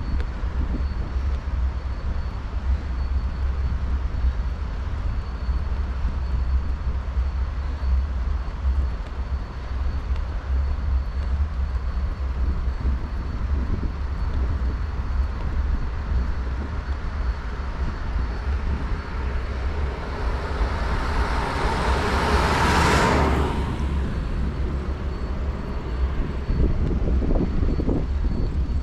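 Steady low wind rumble on an uncovered action-camera microphone while riding a bicycle. About two-thirds of the way in, a motor vehicle passes: its noise swells over a few seconds, peaks, then falls away quickly.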